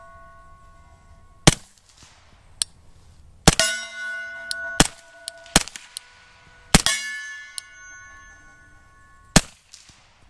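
Glock 21 in .45 ACP firing 230-grain ball through a Gemtech Blackside 45 suppressor: a string of suppressed shots about a second or two apart. Several hits clang off an AR500 steel plate and ring on, while others thud into a dirt pile.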